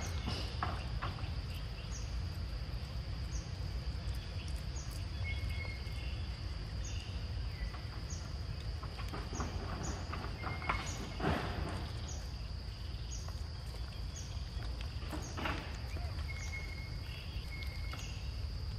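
Forest ambience: insects keep up a steady high buzz with a short chirp repeating about once a second, and brief bird notes sound now and then. Under it runs a low rumble, with a couple of short rustles partway through.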